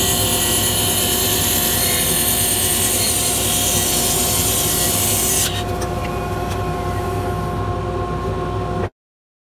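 Mini lathe running while a 1/8-inch parting tool cuts into a spinning spalted maple bangle blank: a steady motor hum under the hiss of shavings being cut. The cutting hiss eases about five and a half seconds in, and the sound stops abruptly near the end.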